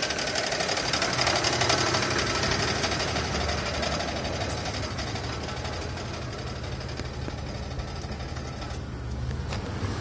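Chevrolet 3800 Series II V6 idling with a fast, steady knocking that the owner places on the passenger side toward the back of the engine. It grows somewhat fainter partway through. He is unsure whether the knock is a rod or push rod or the A/C compressor bearing, because it goes away when the AC is switched on.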